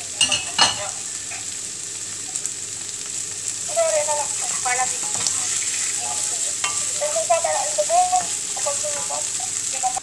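Sliced onions and minced ginger sautéing in hot oil in a frying pan, stirred with a wooden spoon: a steady frying sizzle, with a few sharp scrapes and knocks of the spoon about half a second in. From about four seconds in, wavering higher-pitched sounds run over the sizzle.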